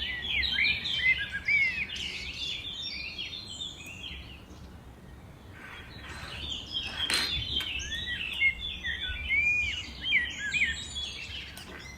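Birds chirping rapidly, a stream of short high chirps that rise and fall in pitch, easing off for a couple of seconds in the middle before picking up again. There is a soft knock about seven seconds in.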